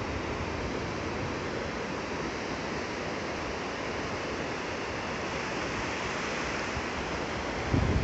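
Small waves breaking and washing up a sandy shore, a steady hiss of surf. Wind starts buffeting the microphone right at the end.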